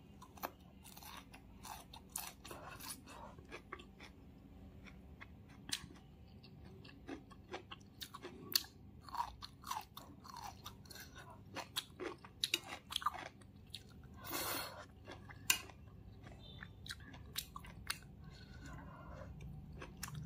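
Close-up chewing of cooked green beans and rice: irregular soft crunches and wet mouth clicks, with one longer, louder crunch about fourteen seconds in.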